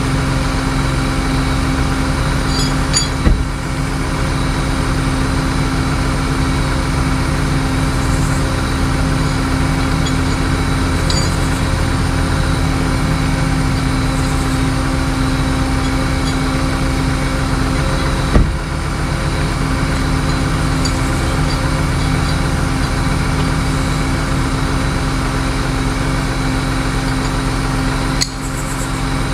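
Vehicle engine running steadily, with a sharp knock about three seconds in and another around eighteen seconds in.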